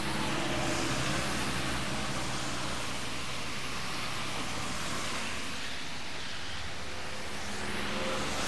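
Motor traffic passing on a wet road: tyres hiss on the wet asphalt over the low drone of engines. It swells about a second in and again near the end as vehicles go by.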